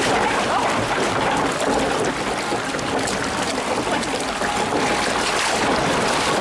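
Water running steadily along a log flume channel around the boat.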